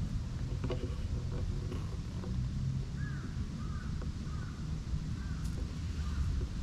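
A bird giving a run of short rising-and-falling calls, about two a second, starting about three seconds in, over a steady low rumble.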